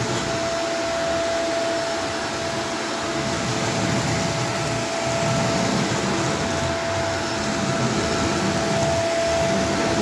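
Vacuum cleaner running steadily: a constant rush of suction with one unchanging whining tone from the motor.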